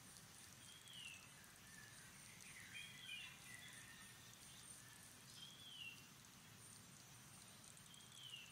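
Faint outdoor ambience: four short, high calls that fall in pitch, a couple of seconds apart, over a steady high hiss.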